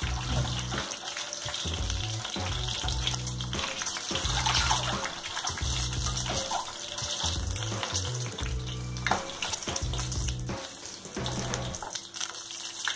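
Boiled eggs sizzling as they shallow-fry in hot mustard oil in a kadai, a steady crackling hiss. Background music with low bass notes plays under it.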